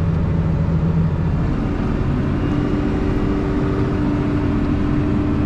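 Case IH MXM 155 tractor's diesel engine running steadily under load while ploughing. Its hum changes pitch about two seconds in.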